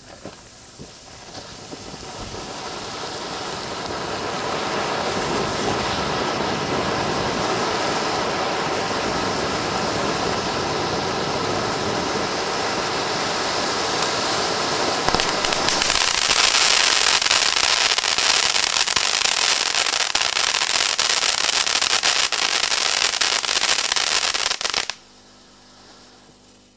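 Ground fountain firework, a fan-shaped silver sparker fountain, burning with a steady spraying hiss and loud crackling. It builds over the first few seconds, grows louder and brighter about halfway through, and cuts off suddenly near the end as it burns out.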